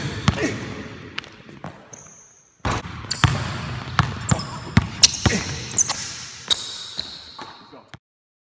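A basketball being dribbled hard on a hardwood gym floor, in repeated quick bounces, with short high sneaker squeaks as the players cut and shuffle. It all cuts off suddenly near the end.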